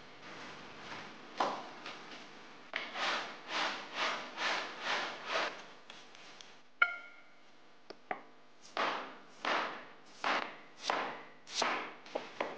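A hand peeler scraping the skin off a firm green fruit in smooth, even strokes, about two a second, with one bright clink about seven seconds in and another run of strokes after it. A few short, sharp knife taps on a wooden board come at the very end.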